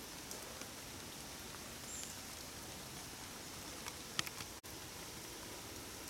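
Steady light rain hissing, with scattered drops tapping sharply on an umbrella overhead, a few louder taps about four seconds in.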